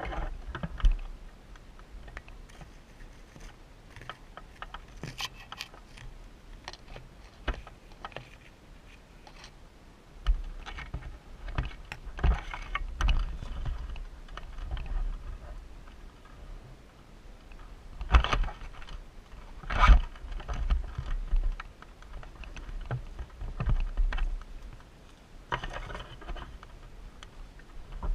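Irregular clicks and knocks over an on-and-off low rumble. The loudest are two sharp knocks about two seconds apart, two-thirds of the way through.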